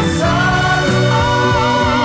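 Background pop music: singing over a steady band backing.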